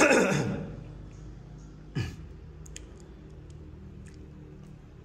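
A man's cough, loud and falling in pitch, right at the start, and a shorter, weaker one about two seconds in, with a few faint clicks in between.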